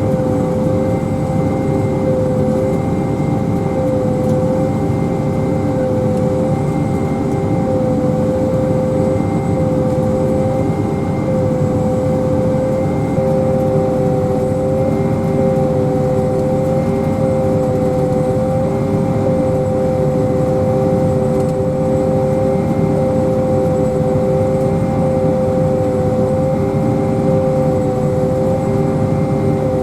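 Self-propelled pea viner running steadily: a loud, even engine drone with a steady whine over it.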